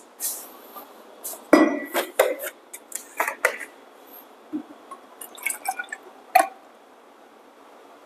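A series of irregular clinks and knocks from a stainless steel milk pitcher and a plastic milk bottle being handled and set down. The loudest knocks come about one and a half seconds in and again about six seconds in.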